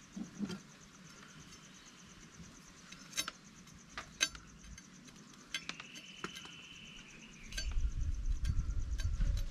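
Scattered clicks and taps of a chef's knife against a wooden cutting board as a lemon is cut in the hand, over steady insect chirping and buzzing. A low rumbling noise comes up near the end and is the loudest part.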